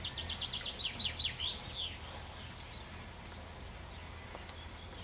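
A songbird sings one short phrase: a fast run of high, falling notes that ends in a few slurred notes, about two seconds long.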